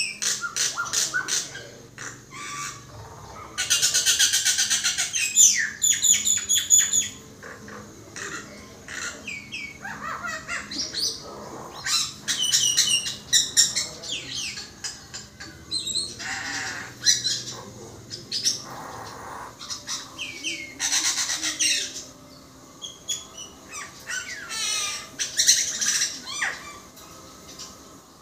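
Caged common myna singing a long, varied song: bursts of rapid clicks and rattles, short sliding whistles and harsh squawks, broken by short pauses.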